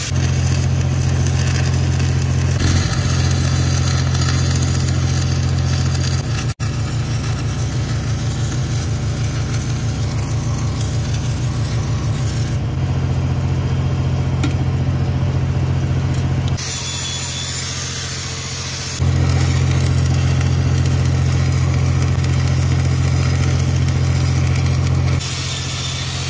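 Stick welding with 6010 rod: a steady hum of machine running under load, mixed with the arc's crackling hiss. The sound changes abruptly several times, the hiss dropping out for a few seconds partway and the hum easing twice.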